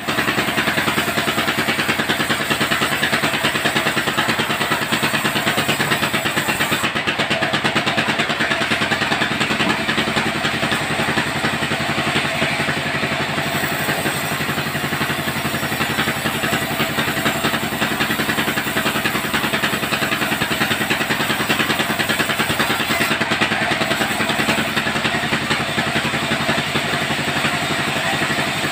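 Vertical band sawmill running steadily, its blade cutting lengthwise through a timber slab, with the machine's drive motor humming underneath.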